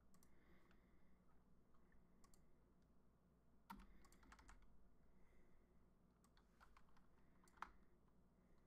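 Faint, sporadic computer keyboard typing: scattered keystrokes with pauses, two of them louder, a little before 4 seconds in and near the end.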